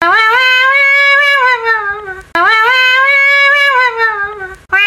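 A wailing voice drawn out in long cries, each sliding up at the start, held, then sagging away; two full cries, then a third begins just before the end.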